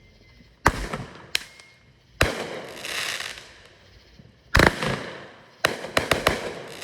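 Fireworks going off: a string of sharp bangs, a few spaced about a second apart and then several in quick succession near the end, with a crackling hiss between them about three seconds in.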